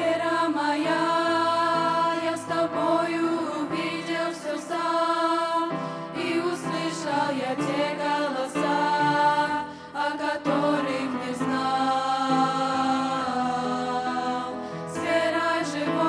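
A teenage girls' vocal group singing a Russian-language Christian song together through handheld microphones, with long held notes.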